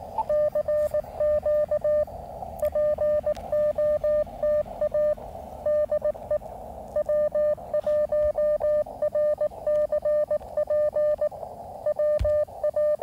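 Morse code CQ call heard as the radio's CW sidetone: a single steady mid-pitched beep keyed in dots and dashes, in several groups with short pauses between them. In the gaps there is hiss from the receiver's narrow CW filter.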